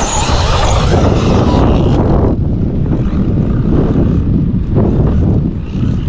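Traxxas Maxx V2 electric RC monster truck driving, its motor and drivetrain running with a loud, dense, noisy rush; the hiss above it thins out about two seconds in.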